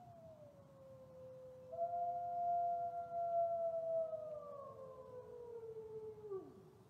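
Wolves howling: two long howls overlap at different pitches, each sliding slowly downward. The louder one comes in about two seconds in and drops away sharply near the end.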